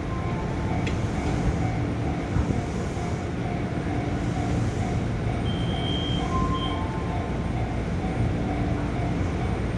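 Steady low hum and rumble of a JR East 205 series 1100 subseries electric train car standing at a station with its doors open, its onboard equipment running. A faint tone comes and goes, and two short high tones sound about six seconds in.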